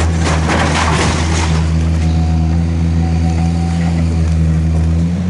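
Diesel engine of a demolition excavator running steadily, with masonry and debris crumbling and clattering down during the first second and a half.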